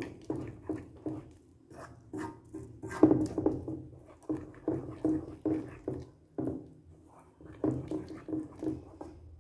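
A wooden spoon stirring a thick, sticky mixture of melted glycerin soap and petroleum jelly in a metal pan: wet squelching and scraping strokes, about three a second, with a short lull a little after the middle.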